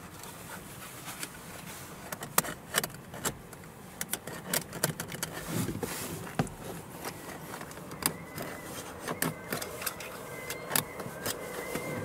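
Irregular clicks, taps and rustling as an LED wire tied to a zip tie is worked through a car's front door panel behind the interior handle. A faint high whine comes in about two-thirds of the way through.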